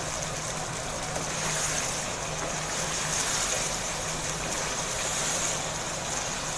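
Goat liver masala sizzling in its pan on a lit stove: a steady hiss with a low hum underneath.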